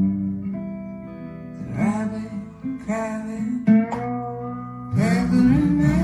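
Music: guitar with a singing voice.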